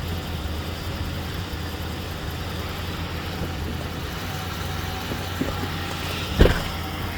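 Car engine idling steadily, with a single sharp thump about six seconds in.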